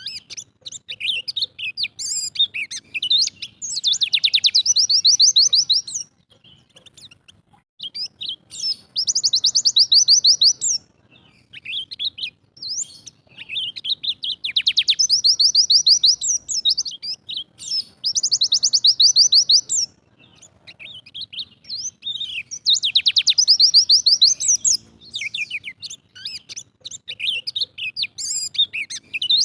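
Pleci dakun white-eye singing: a jumble of high, quick chirps broken about every four to five seconds by a long, very fast trill of about two seconds, the 'tembakan' (shooting) phrase.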